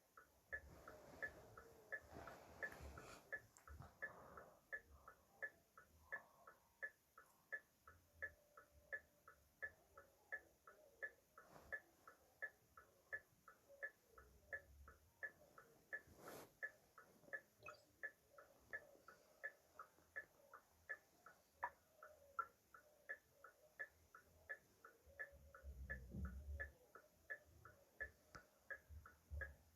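Car hazard-light flasher ticking steadily and evenly, a little under two crisp ticks a second.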